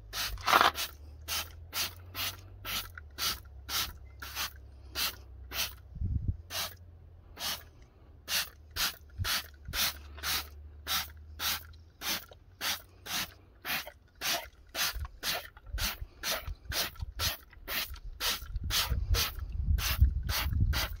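Hand trigger spray bottle squirting wheel cleaner onto an alloy wheel: a short spray hiss with each trigger pull, about twice a second, over and over. A low rumble builds near the end.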